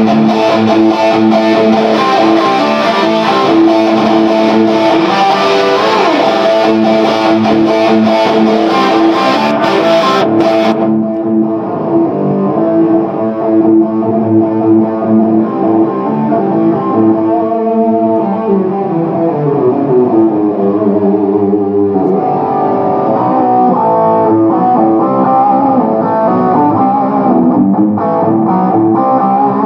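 Electric guitar played through a tube amp, an EL34 conversion of a 1957 RCA PA amplifier, in sustained chords and single-note lines. The top end drops away abruptly about a third of the way in, leaving a duller tone.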